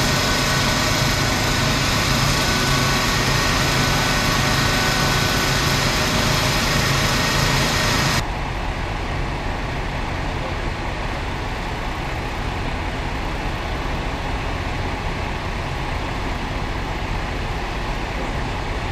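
Idling fire department vehicles: a loud, steady engine drone with a low hum. About eight seconds in it drops suddenly to a quieter, duller drone.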